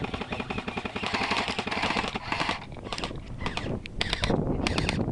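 Airsoft guns firing full-auto: a long rapid run of shots for about two and a half seconds, then several shorter bursts.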